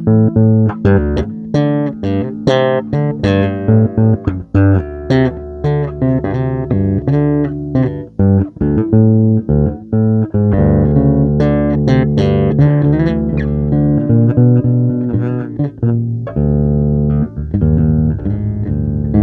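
Guitar and bass guitar playing: a run of quick plucked notes over held low bass notes, loosely improvised as if searching for a musical idea.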